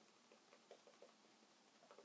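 Near silence, with a few faint soft taps of a masking-fluid pen's nib dotting onto watercolour paper.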